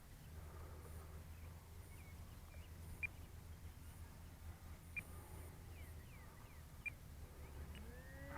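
Faint outdoor background: a steady low wind rumble with short, high bird chirps about every two seconds.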